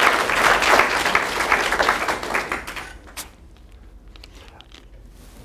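Audience applauding, the clapping fading out about three seconds in, followed by low room tone with a few faint clicks.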